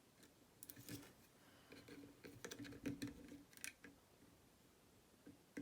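Faint scattered scraping and light clicks of a steep hook pick and tension wrench being worked into the keyway of a six-lever Chubb lever lock.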